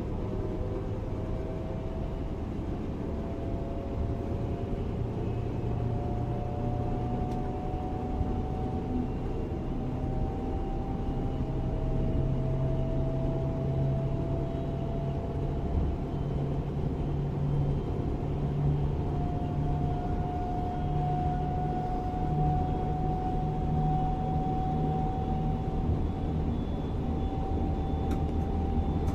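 Class 425 electric multiple unit running, its traction motors whining in a steady tone that rises slowly in pitch as the train gathers speed, over a steady running noise.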